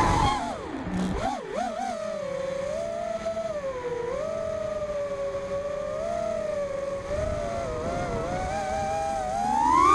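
FPV quadcopter's brushless motors and propellers whining in flight as heard from the onboard camera. The pitch wavers up and down early, holds fairly steady through the middle, then climbs near the end as the throttle is pushed up.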